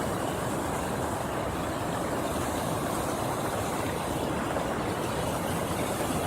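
Fast mountain stream rushing steadily, an even wash of water noise.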